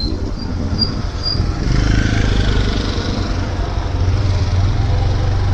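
Steady low rumble of wind and motorcycle engine picked up by a helmet-mounted microphone while riding, with a few faint high chirps in the first second and a half.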